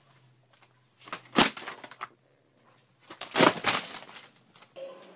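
A cat slipping off the top of a wooden dresser: two bursts of knocks and clattering about two seconds apart, the sharpest single knock about a second and a half in.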